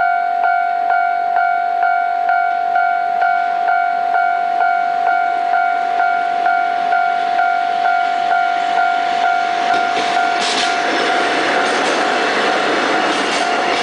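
Japanese level-crossing warning bell ringing, one steady tone struck evenly about twice a second. From about ten seconds in, the rising rumble and wheel clicks of an approaching freight train build up beneath it.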